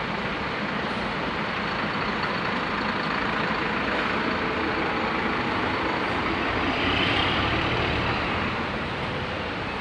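Intercity coach's diesel engine running as the coach pulls slowly away, a steady engine noise with a faint high whine that swells and fades in the second half.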